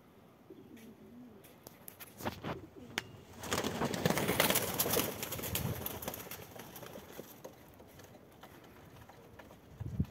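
Srebniak fancy pigeons cooing softly, then a loud flurry of wing-flapping for about two seconds as two birds scuffle on the ledge, with a few sharp wing claps just before it.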